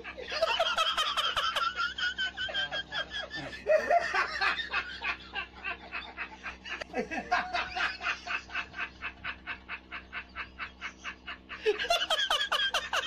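People laughing, a long run of laughter in quick rhythmic pulses of about four to five a second.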